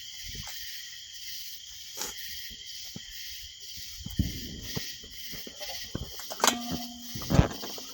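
Steady high chirring of insects, with scattered clicks and knocks. A brief squeaky tone comes about six and a half seconds in, and a louder knock follows near the end.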